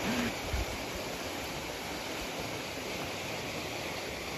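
Steady, even background noise of the outdoors at night, with no distinct events; a man's voice trails off at the very start.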